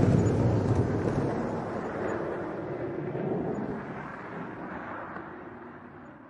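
A deep, noisy rumble that fades steadily over several seconds.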